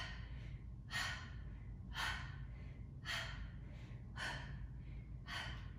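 A woman's forceful exhales, about once a second, each one timed with an arm reach of a rope-climb exercise in boat pose.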